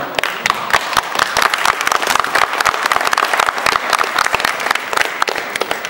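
Crowd applauding and clapping at the end of a fight round, dense at first and thinning out towards the end.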